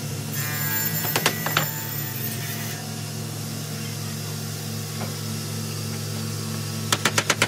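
Light, quick hammer taps, about eight a second, begin near the end, driving small nails to fix a wooden glazing bead around a glass pane in a door frame. Under them is a steady low hum, with a few sharp clicks about a second in.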